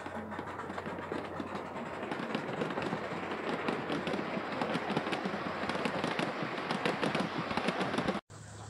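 Gauge 1 model train coaches rolling past, their wheels making a rapid, crackling run of clicks on the track that grows louder, then cuts off suddenly near the end.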